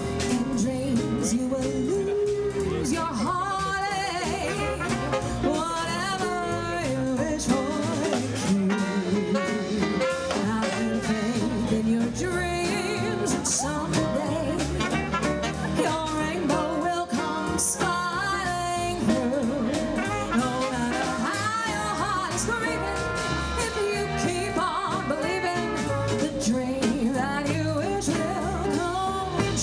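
A song with singing over instrumental backing.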